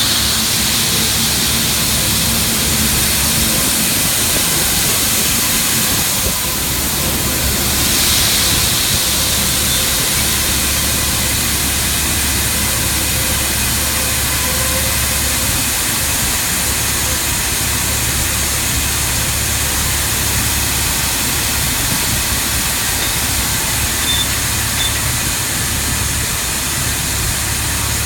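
Shelled corn pouring steadily from a grain semi-trailer's hopper gates onto the steel grate of a dump pit, a continuous loud hiss, over a steady low machine hum.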